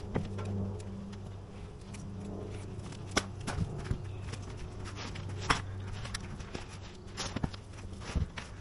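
Footsteps on a roof and scattered sharp knocks from a roofer moving and handling tools, heard over a steady low hum.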